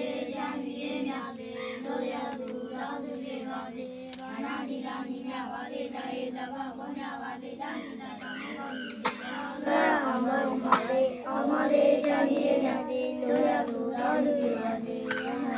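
Group of young Buddhist novice monks chanting a prayer together in unison before eating, children's voices held on a steady, level pitch. The chanting grows louder about ten seconds in.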